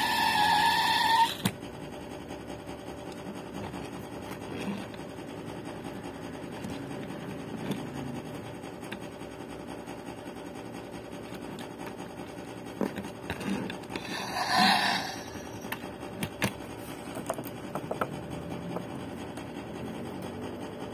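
Toy Chevrolet Camaro SS playing its electronic car sound effect through a small built-in speaker, a steady buzzy tone that cuts off suddenly about a second and a half in. After that there are faint rubbing and light clicking sounds as the toy is handled, with a brief rustle about fourteen seconds in.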